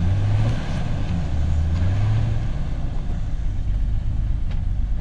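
SUV engine working under load as it crawls up a rocky ledge, its low revs swelling twice and then settling.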